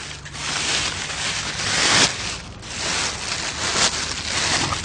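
Thin plastic grocery bag rustling and crinkling as it is handled close to the microphone, in uneven surges.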